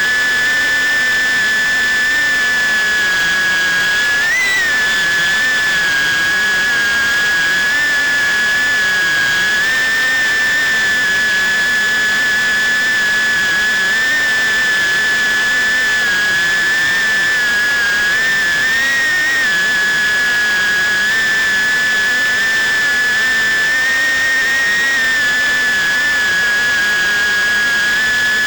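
FPV drone's motors and propellers whining at a steady high pitch that wavers a little, with a brief rise in pitch about four seconds in.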